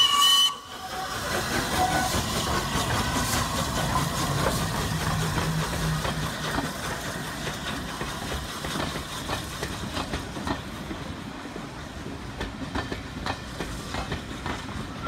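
The whistle of Flying Scotsman, the LNER A3 Pacific steam locomotive, cuts off about half a second in. The locomotive then gets its train under way with a steady hiss of steam and exhaust, slowly fading as it pulls away.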